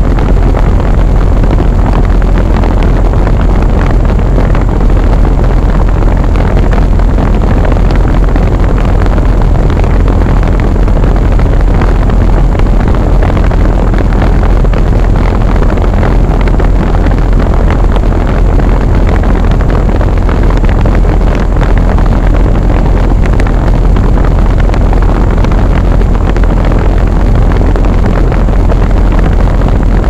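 York Affinity Series 3S 3.5-ton central air-conditioner condensing unit running, its condenser fan blowing air straight up past the microphone. The result is a loud, steady rush of air over a deep, even rumble.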